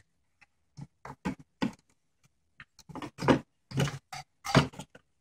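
Irregular clicks, taps and rustles of a circuit board, ribbon cable and plastic connector being worked loose from a gutted CD-ROM drive, the loudest handling noises coming about three to five seconds in.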